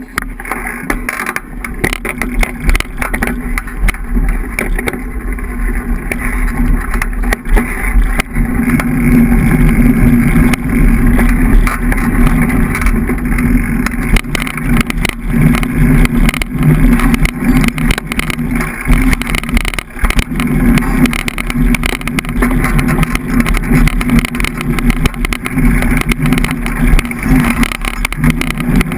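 Continuous rumble of a rigid, unsuspended 2013 Fatback fat bike rolling down dirt singletrack, heard through a camera fixed to the bike: fat-tyre noise, trail bumps and frame rattle running loud and unbroken, with a short dip about twenty seconds in.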